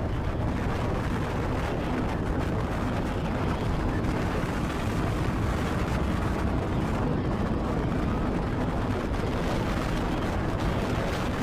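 Tornado-force wind buffeting the microphone: a loud, steady, rumbling rush of noise full of crackle.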